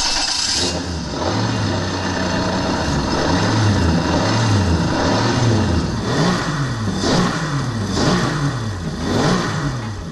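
Duke axial engine, a valveless five-cylinder design, running and being revved up and down again and again, the revs swelling slowly at first and blipping more quickly in the second half.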